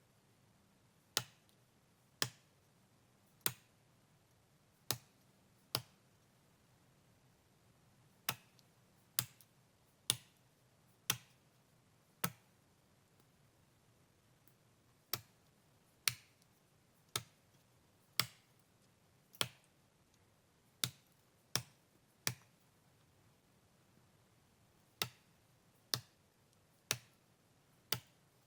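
Felling axe chopping into spruce wood: sharp single strikes about one a second, in runs of four or five with short pauses between.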